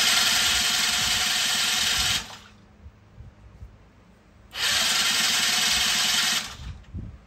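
Polaris Scrambler 50 ATV's electric starter cranking the engine with the spark plug out, in two bursts: the first stops about two seconds in, and a second of about two seconds starts near the middle. The engine is being turned over to clear excess oil, and the plug came out wet.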